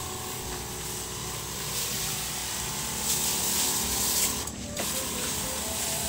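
Motorised pesticide sprayer running: a steady mechanical whir under the hiss of spray from the nozzle. The hiss grows louder about three seconds in and cuts out briefly just past four seconds.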